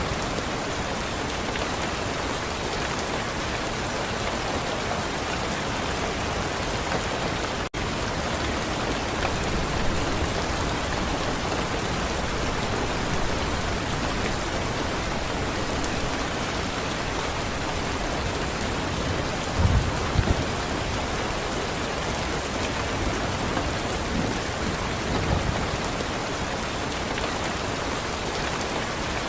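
Steady, even rain, with a couple of short low rumbles about two-thirds of the way in and a split-second gap in the sound about a quarter of the way through.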